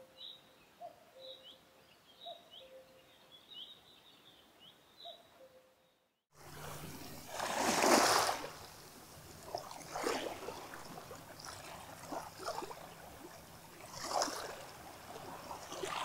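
Shallow water lapping and washing over a pebble shore, in uneven splashing swells, loudest about a second and a half after it starts, with a steady low hum under it. The water starts about six seconds in; before it come soft, repeated short chirps.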